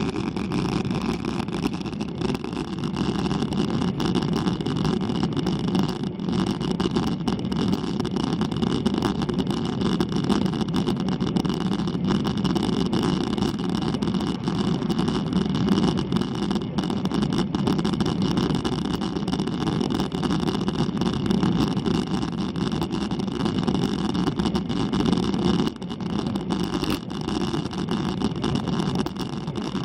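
Steady road and wind noise from a road bike climbing at about 18 km/h, picked up by a handlebar-mounted action camera: a dense, even rumble with a thin hiss above it.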